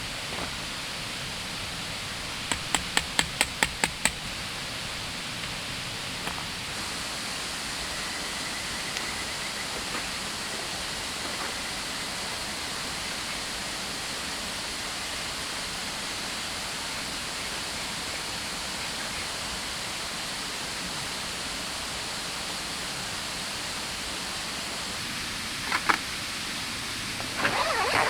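Steady rushing of a flowing river or stream. A few seconds in, a quick run of about eight sharp taps, roughly five a second, stands out above it, and a couple of short clattering knocks come near the end.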